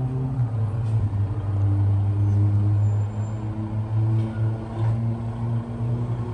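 Truck engine running with a steady low hum while the truck rolls slowly across a yard.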